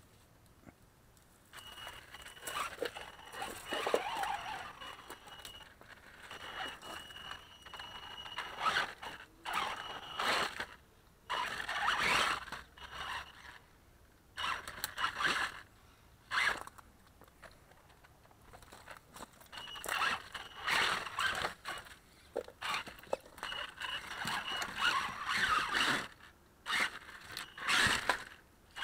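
Electric RC rock racer (Axial Yeti) driven in short spurts of throttle, its motor and gears giving a thin high whine, with tyres scraping and crunching over wooden timbers and dry leaves.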